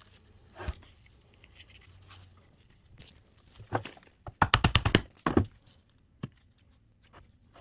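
Light taps of a thin screwdriver being driven into the seam between the halves of an Audi 4.2 V8 intake manifold to split them. The taps come singly, with a quick run of about six a little past halfway.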